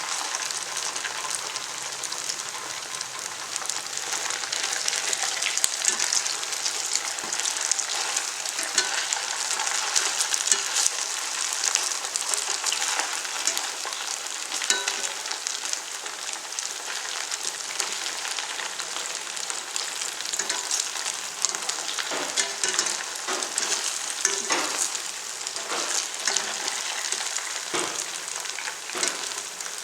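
Sabudana vadas frying in hot oil: a steady crackling sizzle, with scattered short clicks and taps, more of them in the second half.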